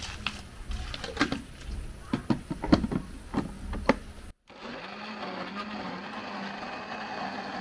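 Knocks and clicks of a plastic blender jar being handled and set on its base, then, after a sudden break about four seconds in, a Philips countertop blender running steadily, puréeing its red contents.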